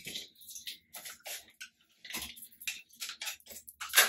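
Irregular rustling and light clicks of handling as a flat iron and its cord are picked up and untangled, with a sharper knock near the end.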